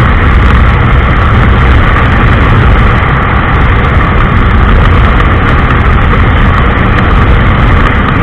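Heavy wind blast buffeting the microphone while a Honda SP 125 motorcycle is ridden at near top speed, with the bike's single-cylinder engine running under it. The noise is loud and steady throughout.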